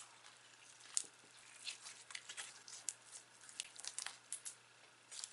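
Slime with squishy, spongy bits mixed in being squeezed and worked by hand, giving faint, irregular popping and crackling clicks, the sharpest about a second in.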